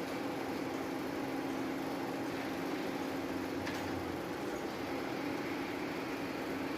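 Kaneko wood planer running steadily, a constant machine hum with a mechanical noise over it; a faint click a little past halfway.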